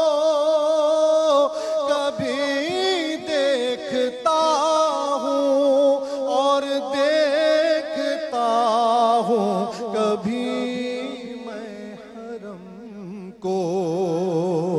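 A man singing a naat into a microphone, in long melismatic phrases with wavering held notes and gliding pitch. About thirteen seconds in, a fuller, lower phrase begins.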